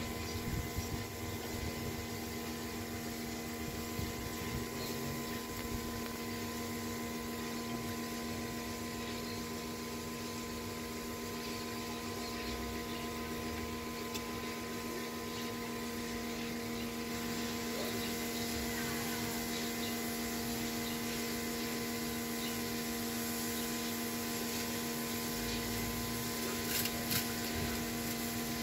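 Steady mechanical hum made of several held tones, with a few faint knocks near the start and again near the end.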